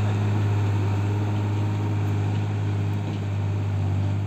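Diesel farm tractor engine running steadily as a low, even hum, hauling a trailer heavily loaded with sugarcane.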